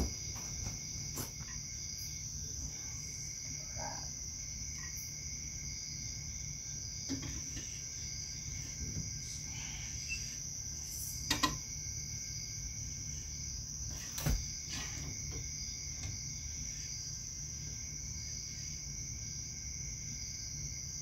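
Steady high-pitched chirring of crickets over a low hum, with a few sharp clicks and knocks of metal parts as an outboard's lower unit is worked back into place; the loudest knocks come about eleven and fourteen seconds in.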